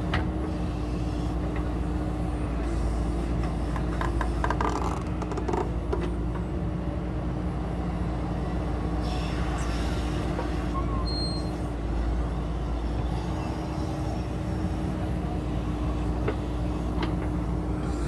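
JCB 3DX backhoe loader's diesel engine running steadily under digging load as the backhoe arm works, with scattered clanks and scrapes from the bucket and boom, most of them between about one and six seconds in.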